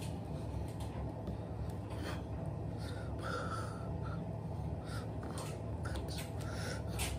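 Steady low room hum with a man's breathing and small mouth and hand noises as he signs, heard as short scattered breaths and soft clicks.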